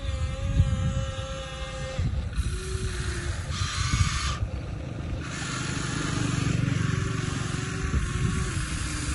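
Small electric motors and gearboxes of an RC excavator running, whining tones that hold and then step in pitch as it works, over an uneven low rumble.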